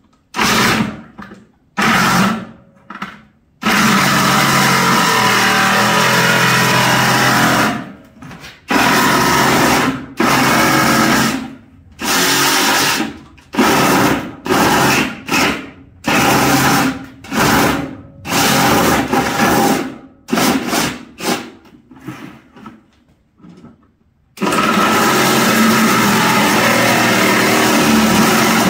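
Small cordless one-handed reciprocating saw cutting through a plastic bucket, running in many short bursts that start and stop, with two longer runs, one about four seconds in and one near the end.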